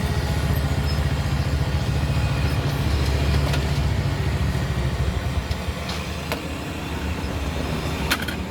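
Engine running steadily at low speed, with a few short sharp clicks, the sharpest near the end.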